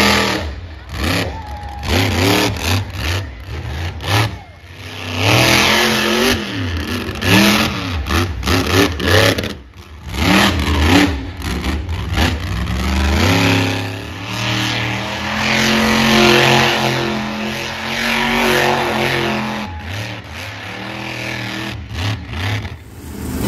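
Monster truck engine revving hard, its pitch climbing and falling again and again through wheelies and donuts, with a longer stretch held at high revs about two-thirds of the way through.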